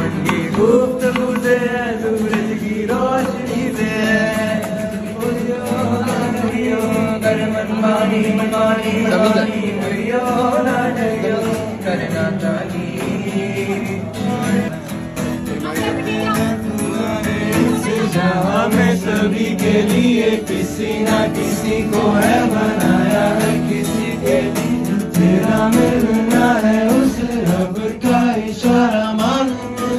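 A group of young men sing a song together, with one lead voice on a microphone, and an acoustic guitar plays along.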